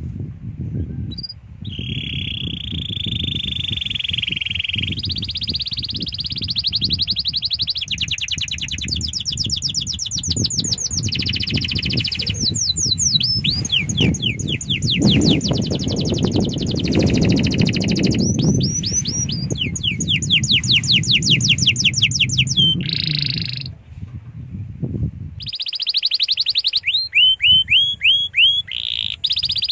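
Domestic canary singing a long continuous song: a series of rapid trills, each held for one to three seconds at a different pitch, broken here and there by quick runs of falling whistled notes. A low rumbling noise runs underneath until about 25 seconds in.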